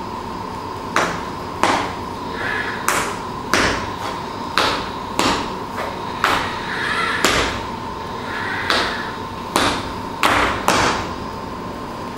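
A series of sharp knocks, roughly one or two a second at uneven spacing, each ringing briefly, over a steady high hum.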